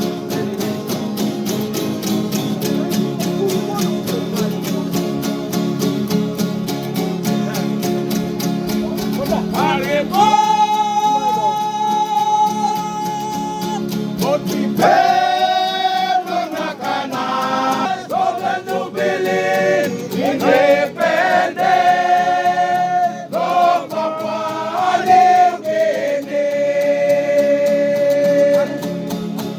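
Papua New Guinea string band playing: strummed acoustic guitars keep a steady, even rhythm, and voices come in singing about ten seconds in, holding long notes over the strumming.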